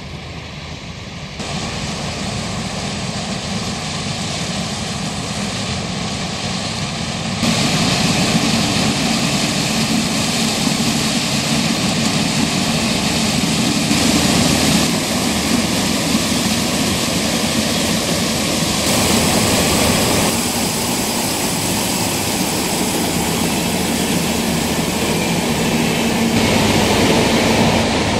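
New Holland CX 7090 combine harvester running while harvesting corn: a steady, loud drone of engine and threshing machinery, shifting abruptly in level and tone several times.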